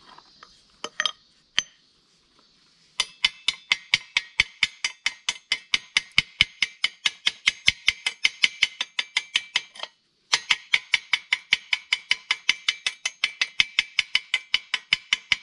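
Chipping hammer tapping along a fresh arc-weld bead on square steel tubing, knocking off the slag: a few separate clinks, then a steady run of light metallic taps at about six a second, with a short break about two-thirds of the way through.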